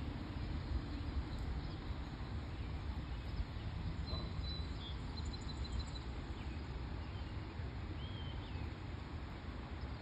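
Outdoor ambience by a pond: a steady low rumble with a few faint, high, short chirps from small birds, a cluster about four to six seconds in and another near the end.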